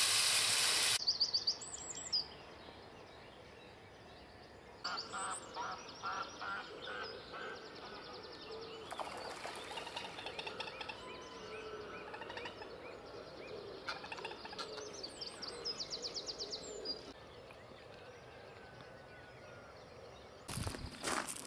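Food sizzling in a pan cuts off about a second in. Then birds call and sing: rapid high trills and runs of quick rhythmic chirps. A couple of sharp clicks come near the end.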